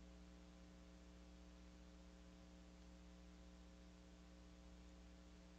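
Near silence: room tone with a faint, steady electrical hum.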